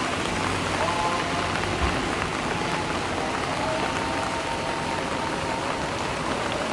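Steady rain falling on broad lotus leaves and potted plants: an even, unbroken hiss of many small drops.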